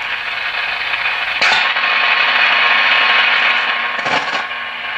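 RME 4350 shortwave receiver's speaker putting out a steady band hiss with faint steady tones in it, running on freshly replaced filter capacitors. The hiss jumps louder and brighter about a second and a half in.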